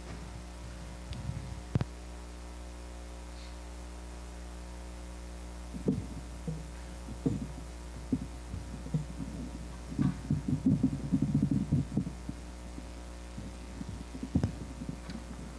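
Steady low electrical hum in a quiet room, broken by scattered soft low thumps and a couple of seconds of muffled shuffling about two-thirds of the way through.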